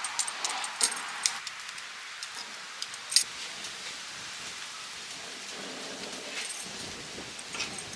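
Breaded chicken breasts shallow-frying in a layer of oil on a hot gas griddle: a steady sizzle with scattered pops and crackles.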